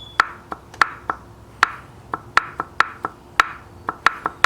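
A hammer tapping repeatedly on the metal parts of a diesel turbocharger to loosen them. There are about a dozen light, irregular strikes, two to three a second, each ringing briefly.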